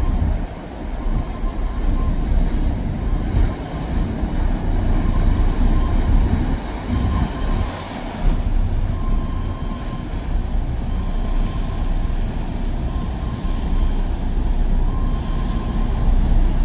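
Tugboat diesel engines running, a loud steady low rumble, with a faint on-and-off high whine over it.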